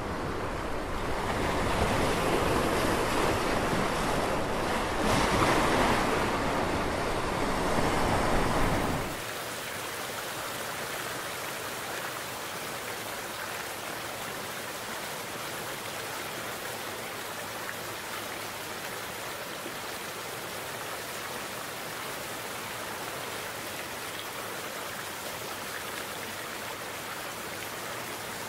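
Sea surf washing in, swelling and surging for about nine seconds, then cutting abruptly to a steady hiss of running water.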